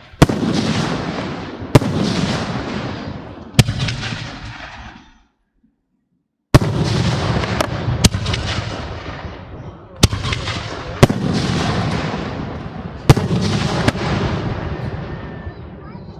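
Aerial fireworks shells bursting overhead: about nine sharp bangs at irregular intervals, each trailing off in a long rolling rumble. The sound drops out for about a second and a half near the middle.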